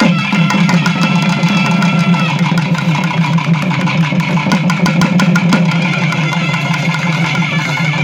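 Live karakattam folk dance music: rapid drumbeats over a steady, droning instrument with held tones.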